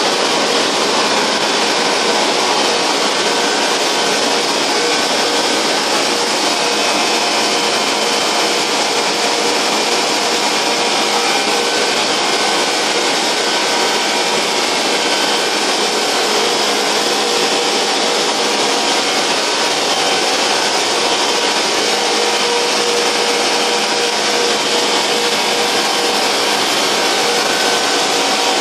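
SA-743 150 HP combination wood chipper-shredder running steadily: a loud, even machine noise with a few faint steady whining tones in it, unchanging throughout.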